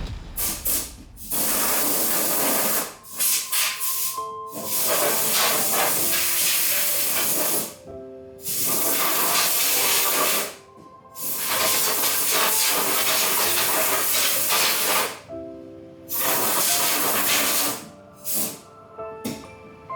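Paint being sprayed in long hissing bursts of two to four seconds, about five of them with short pauses between, as steel wheels are coated in gloss black. Background music plays underneath.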